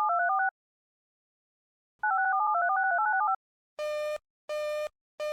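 Emergency alert broadcast signalling tones: two rapid strings of telephone-style touch-tones, the first ending about half a second in and the second running from about two to three seconds in. Near the end a buzzy pulsed alert tone starts, beeping about once every 0.7 seconds.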